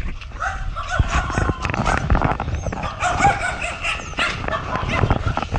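Dog whining and yipping in short, wavering high cries, over a low rumble and scattered knocks.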